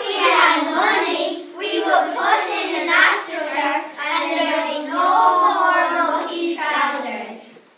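A small group of young children singing together in chorus.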